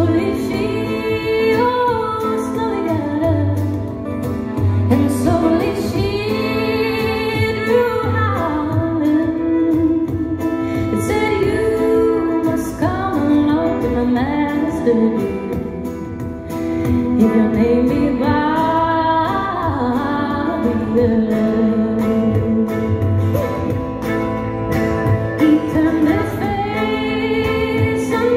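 Woman singing a song live with a folk band of acoustic guitar, accordion, double bass and fiddle behind her.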